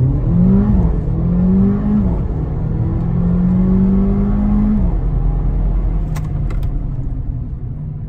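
Mercedes CLA45 AMG's turbocharged 2.0-litre four-cylinder accelerating hard: the engine pitch climbs and drops twice with quick upshifts in the first two seconds, then climbs steadily through a longer gear until it eases off about five seconds in.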